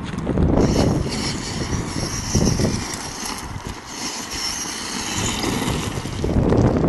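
Traxxas E-Maxx electric monster truck driving over gravel: its twin electric motors whining and its tyres crunching over loose stones, with wind buffeting the microphone. It gets louder near the end as the truck comes close.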